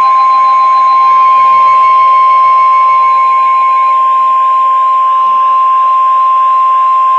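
NOAA Weather Radio's 1050 Hz warning alarm tone: one loud, steady, unwavering beep held throughout, with faint wavering tones beneath it. It signals that an urgent alert, here a flood warning, is about to be broadcast.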